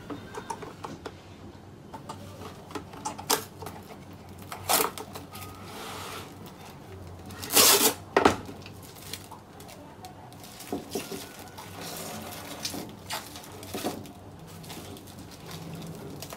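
Plastic cling wrap being pulled from its box, torn off against the box's cutter and crinkled as it is laid loosely over a small bowl: a run of sharp crackles and clicks, loudest a little past the middle as the sheet is pulled and cut.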